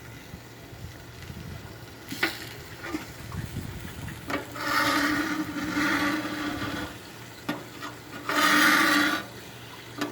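Two rasping scrapes of metal across a griddle top, the first about two and a half seconds long and the second shorter, over a faint hiss from the hot griddle.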